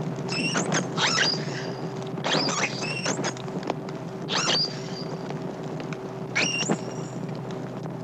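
An isolated dolphin whistling underwater, heard through a hydrophone: about five bursts of whistles that sweep sharply up and down in pitch, with scattered clicks and a steady low hum underneath. These are the distress calls of a young female cut off from her herd.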